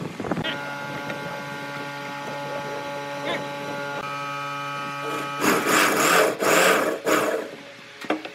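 Corded electric drill running with a steady motor whine, then boring into a wooden block: three loud rough bursts about five to seven seconds in as the bit bites into the wood, after which the drill stops.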